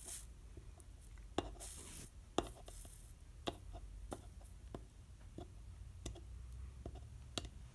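Soldering iron melting solder along the seam around a stained-glass lampshade's brass vent cap: faint scattered ticks and crackles, with two brief sizzles about two seconds in.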